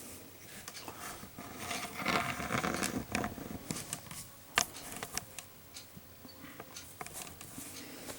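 Small cardboard box and its protective sleeve being handled: rustling and scraping with scattered small knocks, busiest about two to three and a half seconds in.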